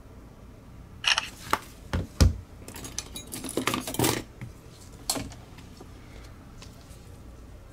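Small clicks and clatter of hand tools and plastic computer-mouse parts being handled on a repair mat: a string of sharp taps from about a second in until about five seconds, loudest around two seconds.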